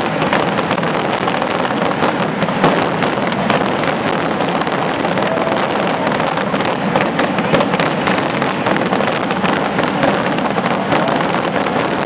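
A massed barrage of firework rockets bursting overhead: a dense, unbroken crackle of countless sharp bangs with no pause, a few louder ones standing out.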